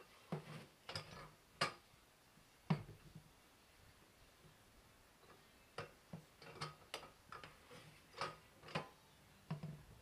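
Manual tire changer being worked with its long steel mount/demount bar on a motorcycle tire: a dozen or so irregular sharp metal clicks and knocks as the bar levers the tire bead over the rim, with a quieter pause in the middle.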